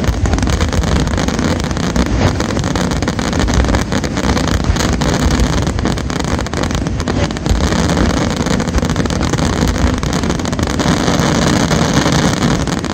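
Aerial fireworks going off in a dense, continuous barrage, with many shell bursts and crackles running together into one loud, unbroken rumble.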